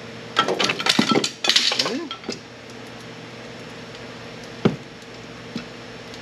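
Metal-on-metal clinking and clattering for about two seconds, then a single sharp click a few seconds later, over a steady hum, as a Porta Power hydraulic spreader is set and worked between the subframe and a stainless steel exhaust header.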